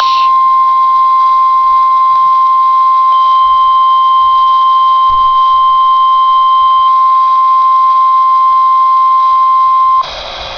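NOAA Weather Radio warning alarm tone: a single steady 1050 Hz tone held for about ten seconds, signalling that a warning broadcast follows. It cuts off sharply near the end, leaving radio hiss.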